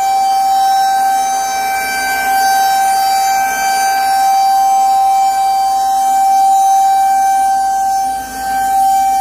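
Federal Signal 2001-SRNB outdoor warning siren sounding its steady alert tone during a scheduled test, the pitch held level throughout. The volume swells and fades slightly, with a brief dip near the end.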